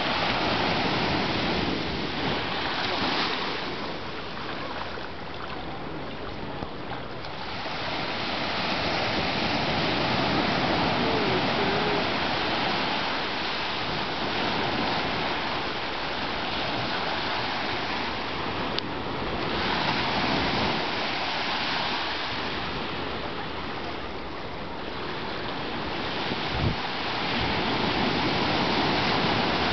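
Ocean surf breaking and washing up the beach, its rush swelling and fading every several seconds.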